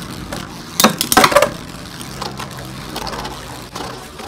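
Two metal-wheel Beyblades, Lightning L-Drago 100HF and Poison Zurafa S130MB, clashing in a clear plastic stadium. There is a quick cluster of sharp metal-on-metal hits about a second in, then lighter ticks as the tops spin on across the plastic floor.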